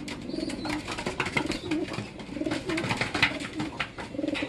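Racing pigeons cooing in a small loft, several low, wavering coos overlapping one after another. Scattered short taps sound between them.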